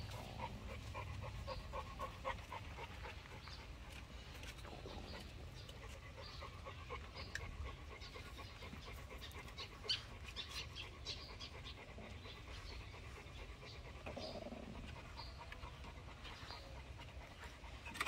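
Faint, soft rhythmic animal sounds with small scattered clicks.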